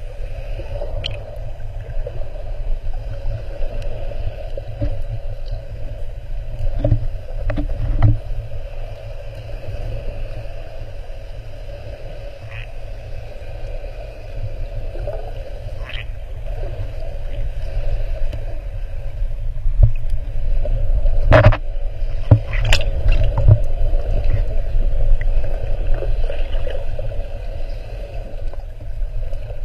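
Muffled underwater sound picked up through a GoPro's waterproof housing: a steady low rumble of water moving against the housing, with a few sharp knocks and clicks, a cluster of them a little past two-thirds of the way through.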